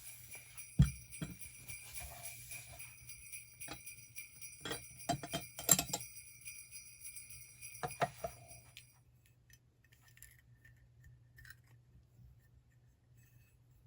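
Small jingle bells ringing in a shimmering jingle, with a few sharp knocks among them. The ringing stops abruptly about nine seconds in, leaving quiet room tone with faint taps.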